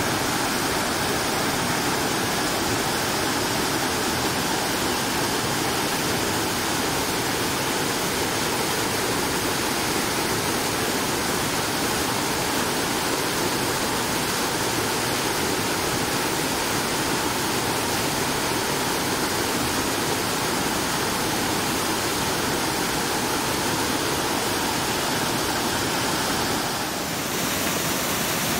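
Mountain river cascading over boulders: steady, loud rushing of falling whitewater, briefly a little softer near the end.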